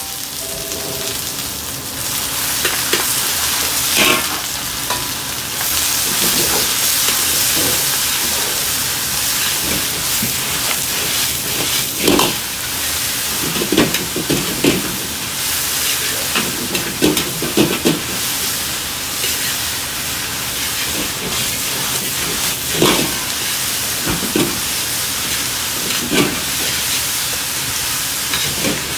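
Stir-fry sizzling in a large wok over a high flame, with the metal ladle scraping and knocking against the wok every few seconds as the pork and greens are tossed.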